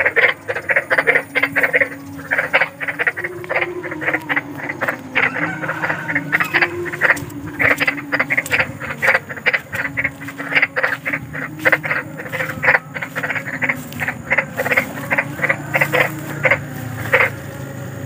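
Frogs croaking: many short, rapid calls overlapping in quick irregular succession, over a lower wavering drone.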